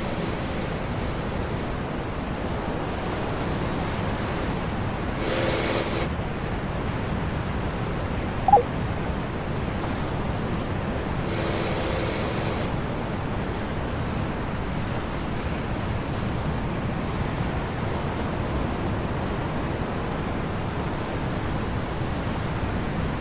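Steady rushing noise of a pump boat under way at sea, its engine, wind and water blending into one even roar. A short, sharp squeak rises and falls about eight and a half seconds in, and two brief tones come through around five and twelve seconds.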